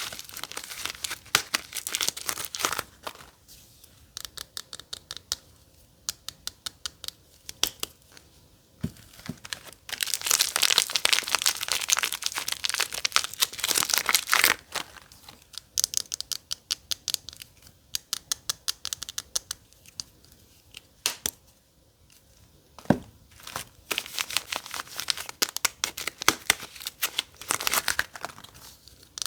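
A soap wrapper being unwrapped, crinkling and tearing in three dense spells: at the start, in the middle and near the end. Between the spells come quieter light ticks and scratches.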